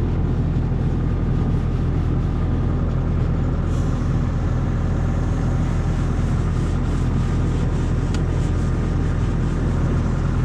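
Bobcat compact excavator's diesel engine idling steadily.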